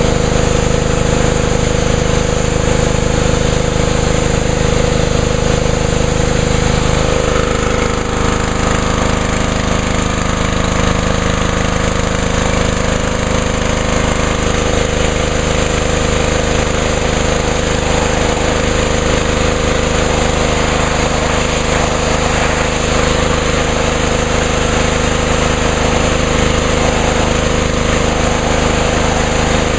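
Honda GCV198 engine on a Ryobi 3100 psi pressure washer running smoothly and steadily on its first start after winter storage, with a slight change in its note about seven seconds in.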